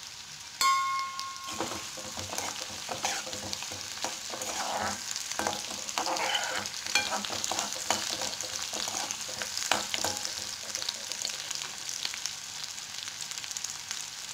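Chopped onions sizzling and crackling in hot sesame oil in a kadai, being sautéed until brownish, while a spatula stirs and scrapes the pan. About half a second in, the spatula strikes the kadai with a short ringing clang, the loudest sound.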